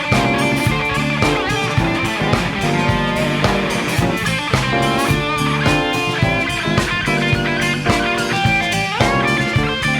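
A live funk-rock band playing an instrumental passage with electric guitar to the fore over bass and drum kit.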